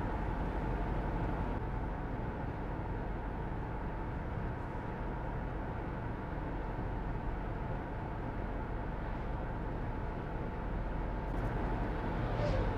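Steady engine and road noise inside a moving car's cabin as it drives along.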